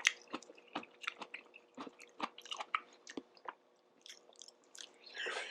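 A person chewing a mouthful of instant ramen noodles close to the microphone: irregular wet smacks and clicks of the mouth, with a short breathy burst near the end.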